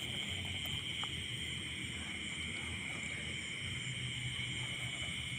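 Steady night chorus of crickets and other insects, a continuous high-pitched trill that does not let up, with a low rumble underneath.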